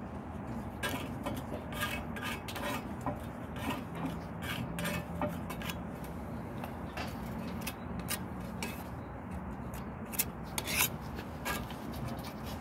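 Metal putty knife scraping over ceramic wall tiles and their joints in a series of short rasping strokes, a few sharper ones near the end.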